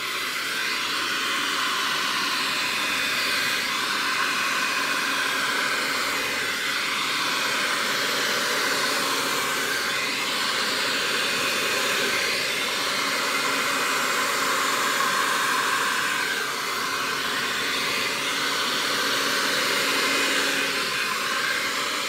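Hair dryer running steadily, a rush of air over a low motor hum, blowing wet acrylic paint across a canvas; it winds down at the very end.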